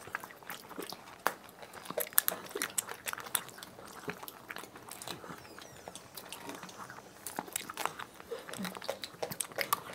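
People eating ice cream bars on sticks: irregular quiet mouth clicks and smacks of biting and chewing.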